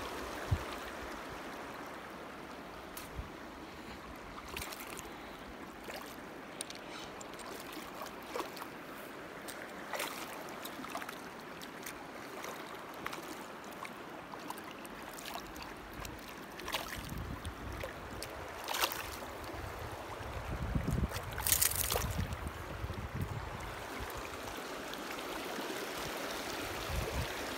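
Shallow river running over stones, a steady rush of water. A dozen or so sharp clicks are scattered through it, with a stretch of low rumbling about three-quarters of the way in.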